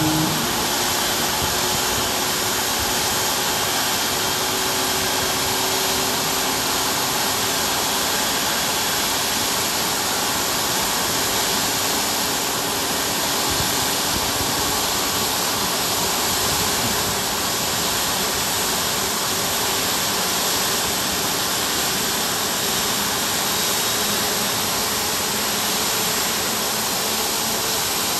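CFM LEAP-1B turbofan on a Boeing 737 MAX 8 running steadily after its start: an even rushing of air with a faint high whine on top.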